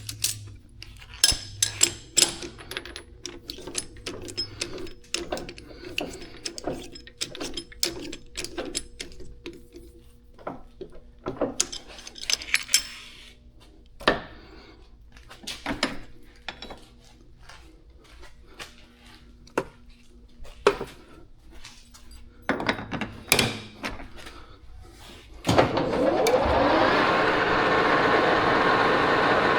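A string of sharp clicks and knocks of metal tools and parts being handled, then near the end a metal lathe starts up and runs steadily with a loud whir.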